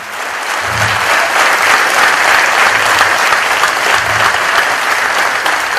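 An audience clapping, swelling over the first second and then holding steady.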